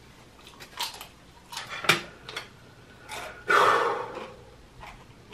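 Small eating and table noises with a few sharp clicks, then a loud heavy breath out about three and a half seconds in.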